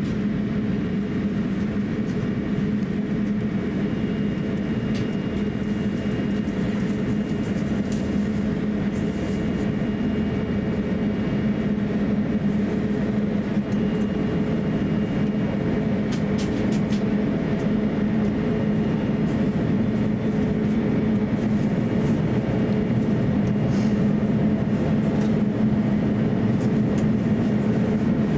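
Cabin noise of an Airbus A350-900 taxiing, its Rolls-Royce Trent XWB engines at low taxi power: a steady low drone with a faint high whine, growing slightly louder near the end.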